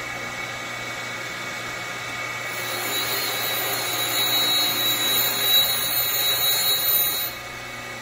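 Surface grinder running, its wheel spindle and motor humming steadily while the grinding wheel works an aluminum workpiece. The wheel's hiss on the metal grows louder from about two and a half seconds in and falls away shortly before the end.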